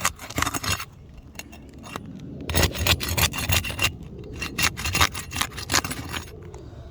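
Irregular scraping and rubbing strokes against gritty roof shingles as a creased shingle tab is worked loose, with a quieter lull about a second in before the scraping resumes.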